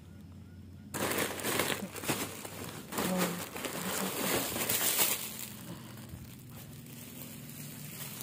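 Plastic wrapping and bags crinkling and rustling as hands dig through a packed bag. It starts about a second in and dies down after about five seconds.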